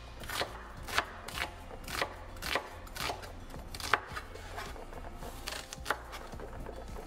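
Knife slicing onions, a cut about twice a second that slows after about four seconds, with one more cut near the end.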